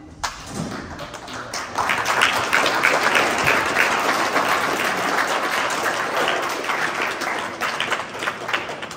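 Audience applauding, many hands clapping together; the clapping swells about two seconds in and dies down near the end.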